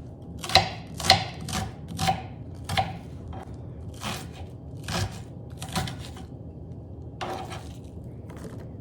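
Kitchen knife chopping an onion: about ten sharp cuts, coming about two a second at first, then slower and more irregular.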